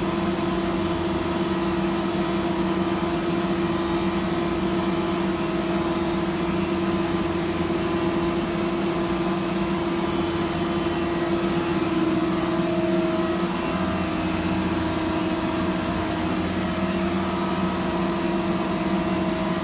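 Steady machine hum from running CNC router equipment, holding several constant tones without change.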